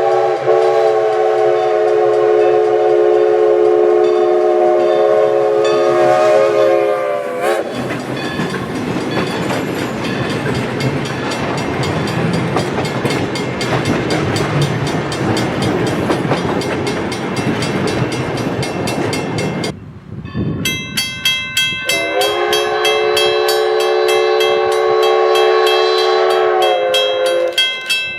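Everett Railroad steam locomotive No. 11's Alco five-chime whistle sounds one long blast that sags in pitch as it closes, and then the train rumbles past. After a break, a fast, even ringing starts and a second long whistle blast sounds, sagging again at its end.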